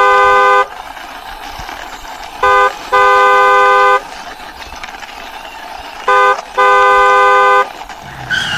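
Two-tone car horn honking in a repeated pattern, a short beep followed by a long one, three times over, the first long honk already sounding at the start. A fainter falling whine comes in near the end.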